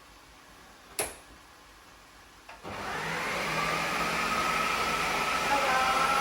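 A sharp click about a second in, then an electric food processor's motor starts and runs steadily with a whine, its blades chopping broccoli stem, ginger and cauliflower leaves.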